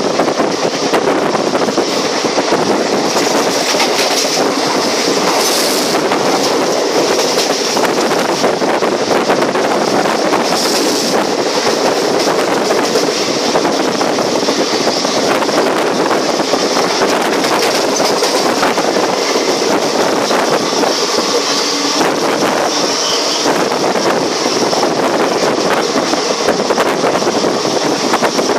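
Passenger train running along the track, heard from on board: a steady, loud rush of wheel and rail noise with scattered faint clicks.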